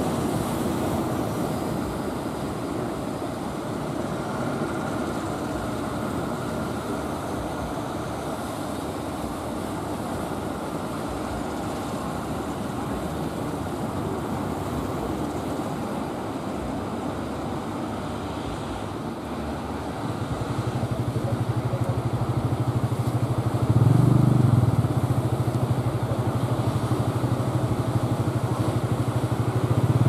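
Steady rushing of sea and surf, then, about two-thirds in, the low steady running of a wooden fishing boat's engine, growing louder as the boat comes close through the waves.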